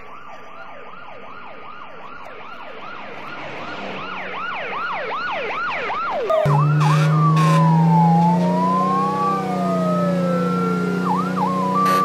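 US fire truck siren in fast yelp, quick rising and falling sweeps, about three a second, growing louder over the first six seconds. A little over six seconds in, a loud, low air horn starts and is held to the end, while the siren changes to a slow wail that falls and rises.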